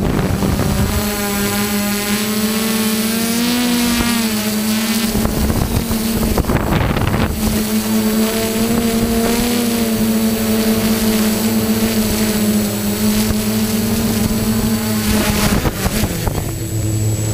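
Quadcopter drone's motors and propellers buzzing at a steady pitch that wavers slightly with throttle, with wind on the microphone; for a couple of seconds near the middle, rushing wind noise covers the buzz. Near the end the buzz stops as the drone sets down on the ground.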